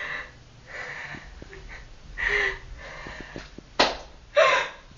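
A person's breathy gasps and sniffs in a run of short bursts, the two loudest and sharpest close together near the end.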